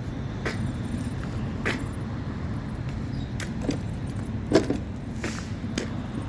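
A steady low motor hum with several short clicks and light rattles scattered through it.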